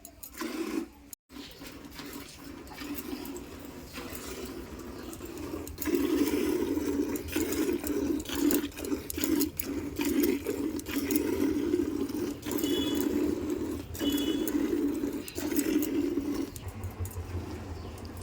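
Milk squirting in quick, rhythmic jets into a part-filled bucket as a Jersey cow is milked by hand. The squirts get much louder about six seconds in and ease off near the end.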